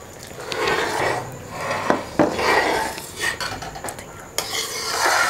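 Metal ladle stirring and scraping around an aluminium kadhai of boiling milk-and-sugar syrup in repeated swishing strokes, with a couple of sharp clinks of metal on the pan about two seconds in.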